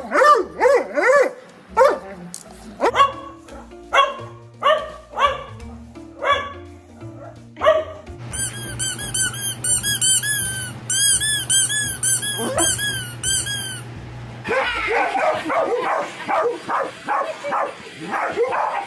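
A dog barks repeatedly over background music, then a squeaky toy squeaks rapidly, several times a second, for about six seconds. Near the end a dog barks and yips in a fast, dense run.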